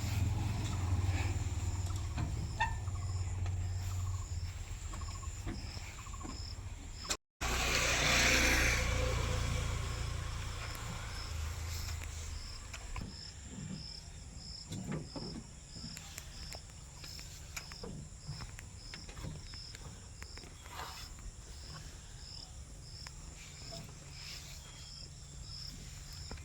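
Crickets chirping in a steady, even pulse, over a low engine rumble that is strongest in the first half and fades away. A short break about seven seconds in is followed by a brief loud rush of noise.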